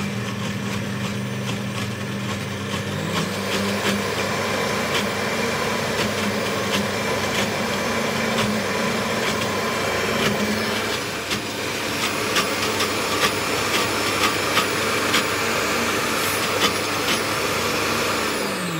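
Stand mixer's glass blender attachment running steadily, pureeing chickpeas into a still-chunky hummus, with many sharp ticks over the motor. Near the end the motor is switched off and winds down in pitch.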